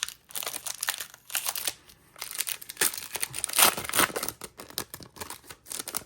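Foil wrapper of a Pokémon booster pack being torn open and crinkled by hand, in a run of irregular crackles and rips.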